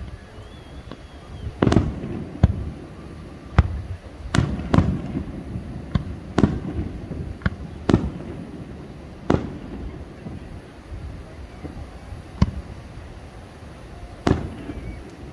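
Aerial firework shells bursting in a series of sharp booms, about ten of them at irregular gaps of one to two seconds. Each boom trails off in a short rumble.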